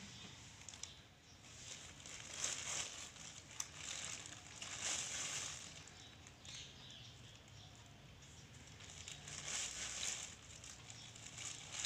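Faint, soft scraping and light patter of a metal spoon dropping crushed Oreo biscuit crumbs onto whipped cream, in a few short spells.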